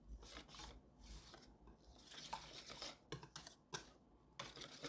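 Wire whisk stirring thick frying batter in a stainless steel bowl, a faint scraping and rubbing in short spells, with two light taps about three seconds in.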